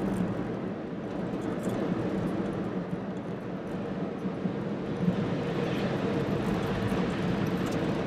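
Steady engine and road noise of a vehicle driving along, with a low hum.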